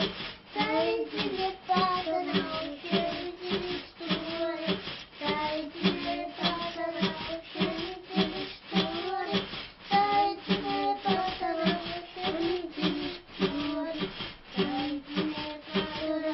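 Music: a high voice singing a melody over a steady beat.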